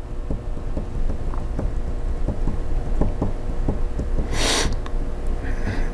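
Steady low rumble of room noise with faint, irregular light taps, and a short breathy hiss about four and a half seconds in.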